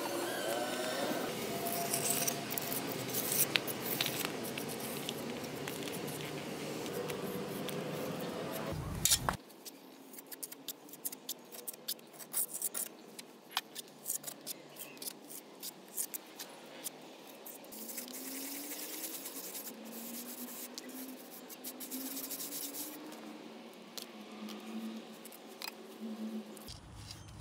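Irregular small sharp clicks and snips from close-up handwork. About nine seconds in the sound drops abruptly to a quieter background with sparser clicks.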